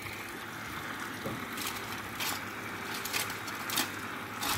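Steady hiss of water running from a tap that drives a water-jet vacuum aspirator. A few light clicks and knocks of glassware and foil being handled on the bench come and go over it.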